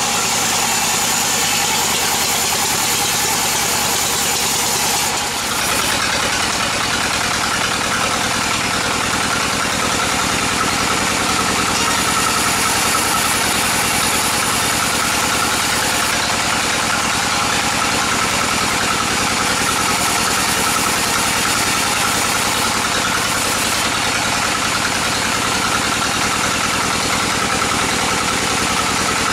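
Sawmill log band saw running steadily, sawing bayur timber into planks. The machine drone is continuous, with a steady high whine above it and a brief dip about five seconds in.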